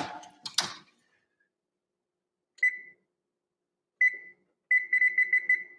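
Electric oven door shutting with a knock just after the start, then the oven's control-panel keypad beeping as it is pressed: one beep, another a second and a half later, then a quick run of beeps about four a second while a 10-minute timer is set.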